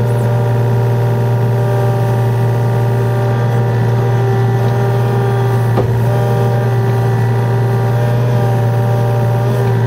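Yanmar VIO35 mini excavator's diesel engine running steadily, close up from the operator's seat, with one short knock about six seconds in.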